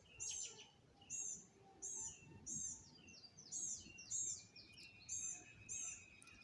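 A bird calling: a short, high-pitched note repeated evenly, about once every two-thirds of a second, roughly nine times.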